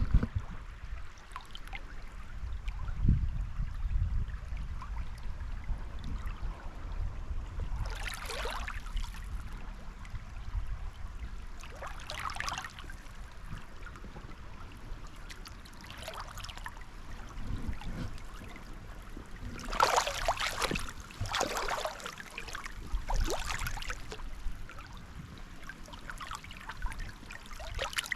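Shallow river water splashing in several separate splashes, as of someone wading, coming more often in the second half, over a low steady rumble.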